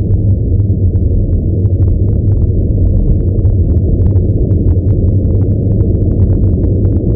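Wind buffeting a phone microphone while riding a bicycle downhill: a loud, steady low rumble, with scattered sharp ticks over it that come thicker after about four seconds.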